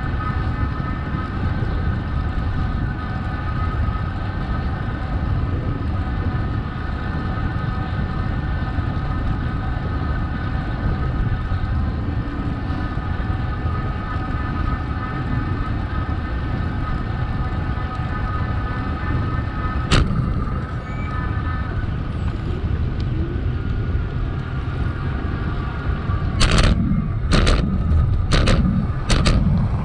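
Wind and road rumble on the microphone of a moving bicycle, with a steady hum over it. One sharp click comes about two-thirds of the way in, and in the last few seconds a quick run of sharp knocks follows, about two a second.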